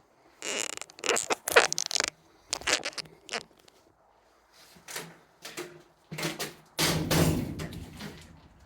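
Steel hat channel being whacked into line: groups of sharp metallic knocks, then a louder, longer clatter about seven seconds in that fades away.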